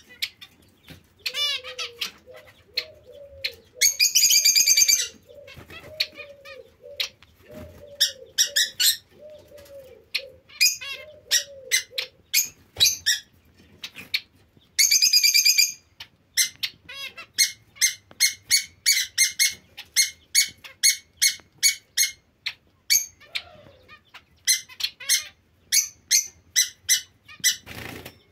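A cage of zebra finches calling: many short calls in quick series, with two longer buzzy phrases about four seconds in and again around fifteen seconds. A lower call repeats about every second through the first half.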